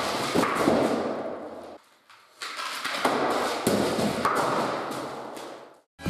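Skateboard deck knocking and clattering on a concrete floor, echoing off bare walls. There are two runs of knocks with a short break about two seconds in.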